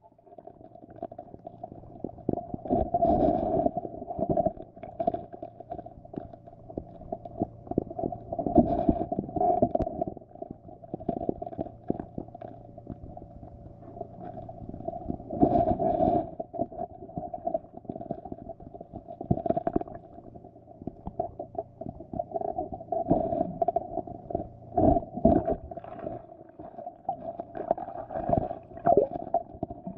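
Muffled underwater rumbling and irregular knocks picked up by a camera in a waterproof housing beneath the ice, over a steady mid-pitched hum.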